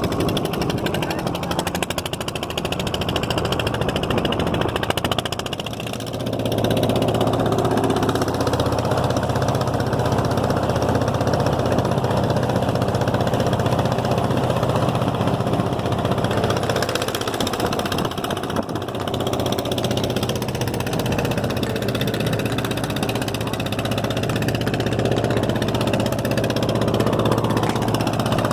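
Fishing launch's engine running steadily. It gets louder about six seconds in as it picks up, with a brief dip about two thirds of the way through.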